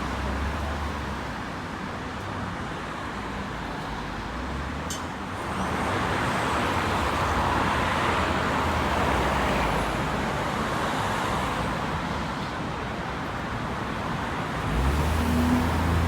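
Bus engines and road traffic at a bus stop: a steady hum of traffic that swells about six seconds in as a vehicle goes by, then a deeper bus engine rumble coming in near the end.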